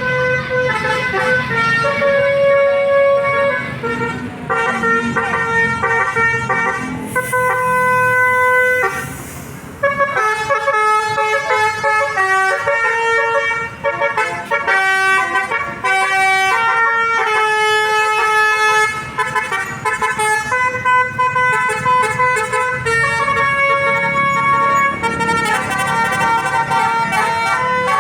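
Indonesian 'telolet' bus horn: a set of musical air horns playing a melody of held notes that step up and down, again and again. The tune breaks off about eight seconds in with a hiss, then starts up again.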